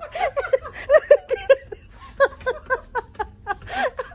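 Laughter: quick runs of short giggling bursts.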